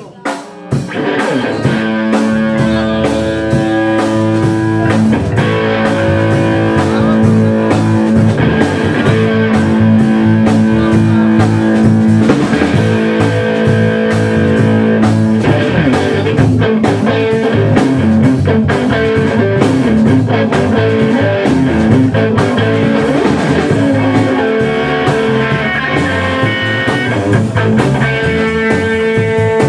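A live rock band with electric guitars and a drum kit playing a song together, the band coming in about a second in.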